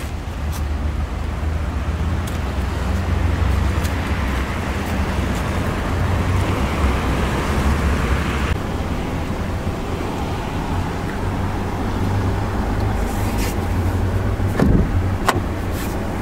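Road traffic noise: motor vehicles running nearby, with a steady low hum under a broad rushing sound that drops away abruptly about halfway through. A few short sharp clicks come near the end.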